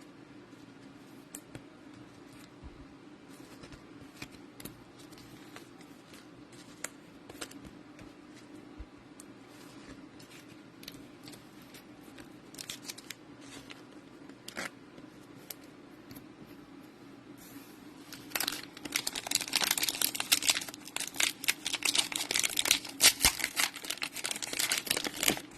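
Scattered faint clicks of handling, then about 18 seconds in, a loud run of crinkling and ripping as a foil trading-card pack wrapper is opened.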